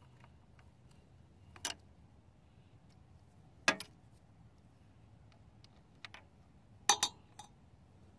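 Hand tools on the bolts of a Farmall 706's gear cover plate as they are loosened and taken out: a handful of sharp metallic clinks of the socket and wrench, the loudest about four seconds in and a quick pair near seven seconds.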